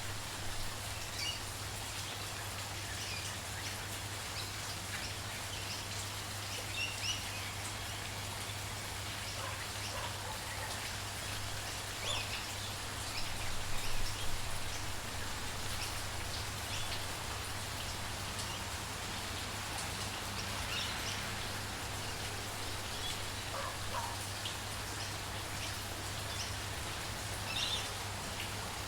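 Steady rain falling, with short bird chirps scattered through it. The loudest chirps come at about 12 and 14 seconds in.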